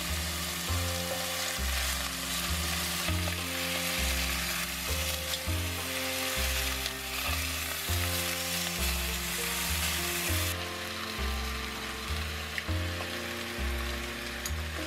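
Onions, whole spices and chicken sizzling in hot oil in a cast-iron pot. The sizzle drops away about ten seconds in. Background music with a steady bass line plays throughout.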